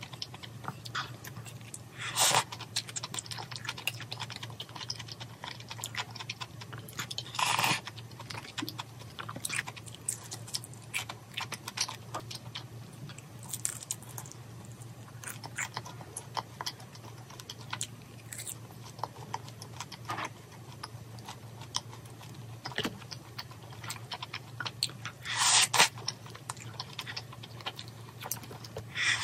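Close-up eating sounds: a person chewing and biting food, including crispy fried pork, with many small clicks and a few louder crunchy bursts. A faint low hum sits underneath.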